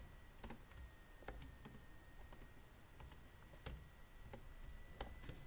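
Computer keyboard keystrokes, faint and irregular, as a line of code is typed.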